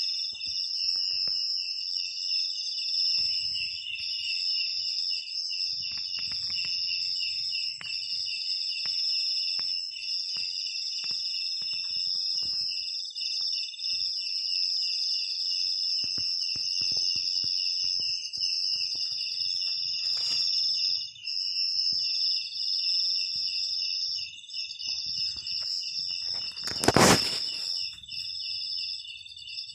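Steady chorus of insects chirring at several high pitches, one of them pulsing rapidly, with a brief loud burst of noise near the end.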